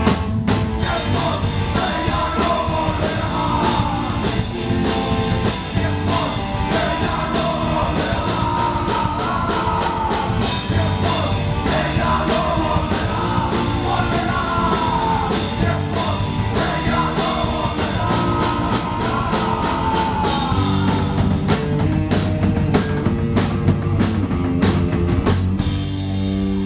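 A punk rock band playing live: a man singing over electric guitar, bass guitar and drum kit. The vocal stops about 20 seconds in, and the band plays on with hard, accented drum hits near the end.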